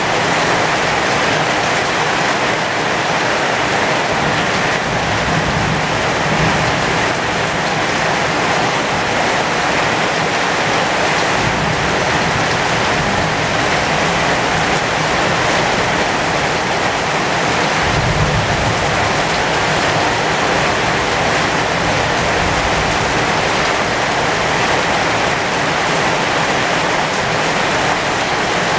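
Heavy rain falling steadily on the leaves of a pomegranate tree, an even hiss of drops. A low rumble comes in partway through and swells again a few seconds later.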